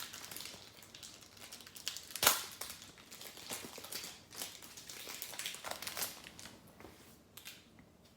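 Wrapper of a trading-card pack crinkling and being torn open by hand, with one sharp tearing crackle a little over two seconds in.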